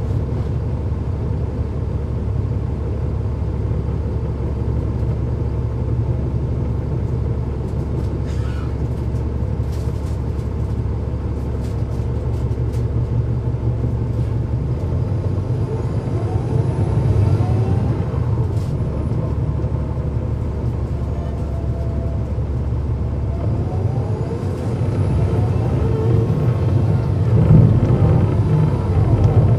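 Cummins ISL9 inline-six diesel of a 2009 NABI 40-foot transit bus, running under way with a steady low rumble. Twice, about halfway and again in the last few seconds, the engine note rises as the bus accelerates, louder the second time. A few light clicks or rattles come about a third of the way in.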